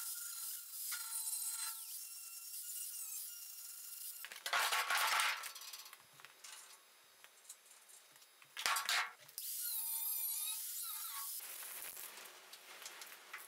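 Angle grinder with a cut-off disc cutting sheet steel: a steady high whine, then two short loud bursts of cutting, about four and a half and nine seconds in, with a quieter stretch between them.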